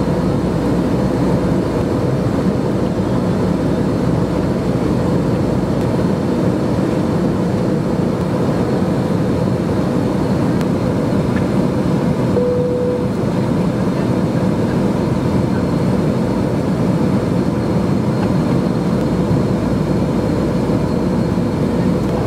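Steady jet airliner cabin noise in flight: engines and rushing airflow heard from inside the cabin, a constant deep noise with a faint steady hum. A brief single tone sounds about halfway through.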